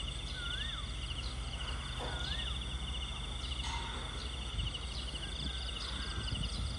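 Insects chirping in rapid, evenly pulsed trains over a steady low rumble, with a bird whistling a short rising-then-falling call twice in the first half.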